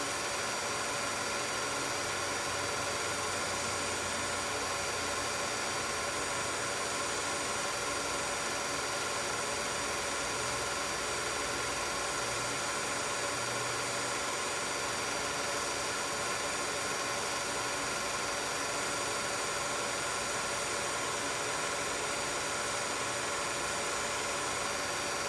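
16mm film projector running: a steady whir and hum with several fixed tones over a hiss, unchanging throughout.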